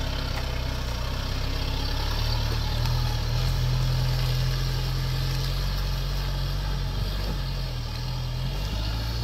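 Mitsubishi pickup truck's engine running steadily as the truck climbs a muddy, rutted dirt track, a little louder about three to six seconds in.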